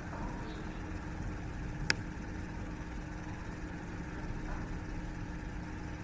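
Steady low background hum, with a single sharp click about two seconds in.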